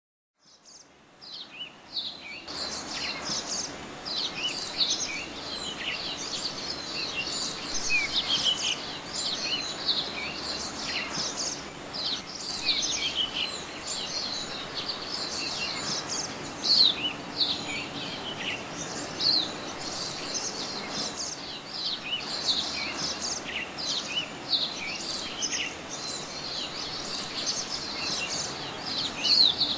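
A dense chorus of many songbirds chirping and calling over a steady outdoor hiss. It fades in from silence during the first two seconds.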